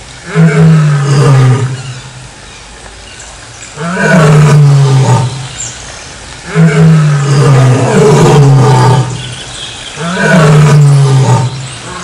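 Lion roaring: a series of deep roars, each lasting one to two seconds and sliding slightly down in pitch, coming about every two to three seconds.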